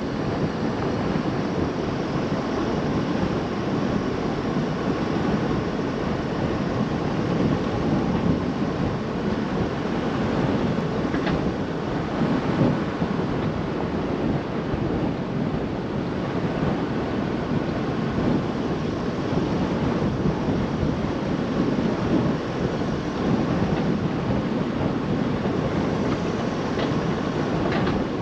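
Steady driving rumble of a Chevrolet Colorado ZR2 AEV Bison pickup moving along a sandy dirt track: tyre and wind noise. Two faint ticks come through, one about eleven seconds in and one near the end.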